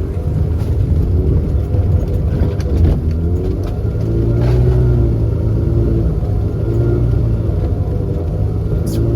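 Subaru R-2's air-cooled 360cc two-stroke twin engine running, its engine speed rising and falling.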